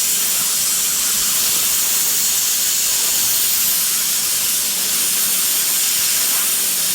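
Plasma cutter running in one long, steady hiss that cuts off abruptly near the end. Its output is turned down, so it struggles to cut through the steel.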